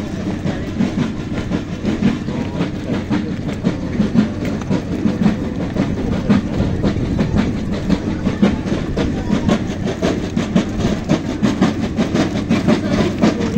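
Footfalls of a large column of marching naval cadets, many shoes striking the pavement in a dense, continuous clatter.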